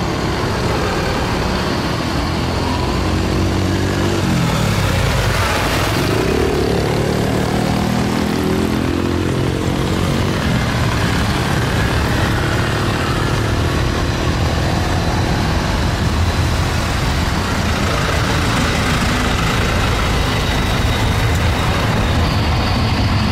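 Twin-engine Airbus A330 airliner's turbofan engines running on the runway: a steady, loud jet rumble. About four seconds in, the engine tones glide down and then climb back up. A faint high whine comes in near the end.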